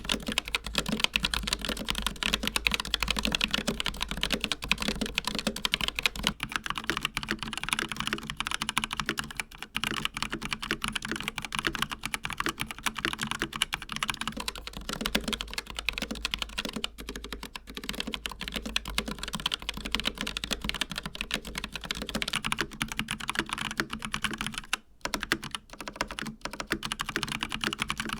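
Fast, continuous typing on Asus ROG mechanical keyboards with linear red switches: first the Strix Scope RX with ROG RX Red switches, then the Flare II Animate with ROG NX Red switches, in turn. There is a brief pause about 25 seconds in.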